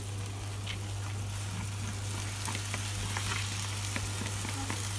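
Food sizzling in a frying pan as cold cooked rice is tipped onto the frying chicken and sauce, with scattered light ticks and scrapes from the rice and spatula. A steady low hum runs underneath.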